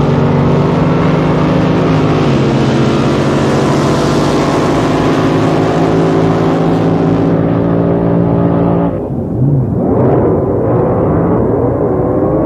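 Supercharged drag boat engine running hard and steady, its pitch stepping down about two seconds in. About nine seconds in the sound changes abruptly to engines that sound duller and farther off, their pitch wavering up and down.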